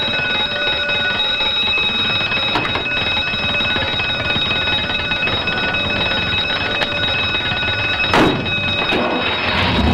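Electric fire alarm bell ringing continuously, the turnout alarm sounding in the fire station. A sharp knock about eight seconds in, and a thump near the end.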